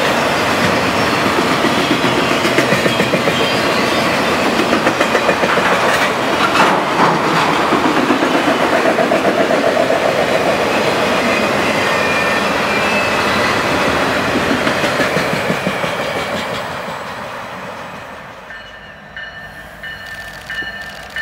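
Freight train of autorack cars rolling past close by: a steady rumble of steel wheels on rail with a regular clickety-clack over the rail joints. The sound dies away about three quarters of the way through.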